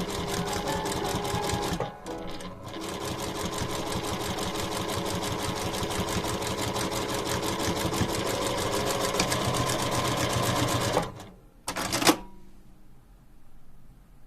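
Sewing machine stitching at a steady fast pace, with a brief pause about two seconds in. The stitching stops about eleven seconds in, and a single sharp click follows a second later.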